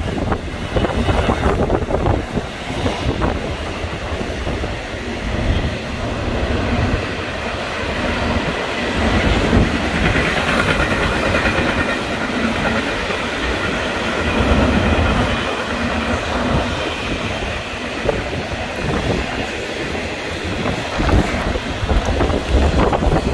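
Double-stack intermodal container freight train running past beneath a bridge: steady, continuous noise of the railcars' wheels on the rails.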